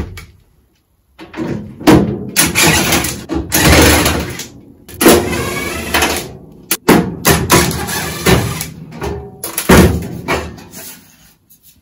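Yellow DeWalt cordless driver running in about seven short bursts of a second or so each, with gaps between.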